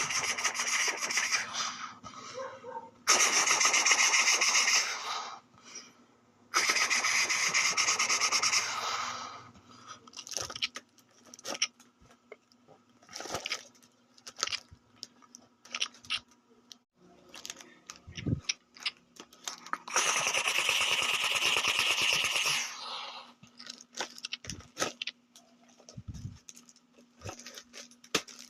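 Imitation gunfire made for toy guns: four long bursts of fast rattling, like machine-gun fire, each lasting two to three seconds, with scattered single clicks and pops between them.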